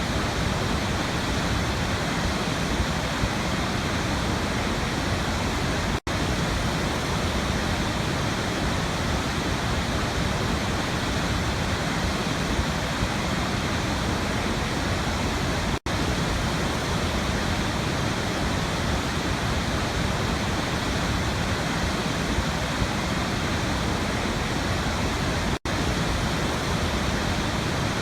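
Waterfall rushing, a steady dense roar of falling water with no change in level. It cuts out for an instant three times, about ten seconds apart.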